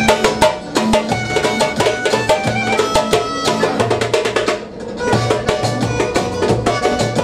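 Live hand drumming played over a melodic backing track from a portable speaker, with steady, rhythmic drum strokes under sustained melody notes. The music drops away briefly a little past the middle, then picks up again.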